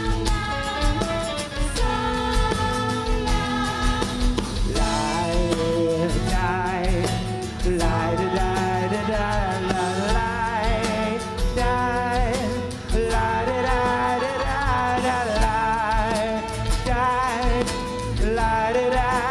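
Live rock band playing, with electric guitar and keyboard under a steady beat, and lead and backing singers singing over it.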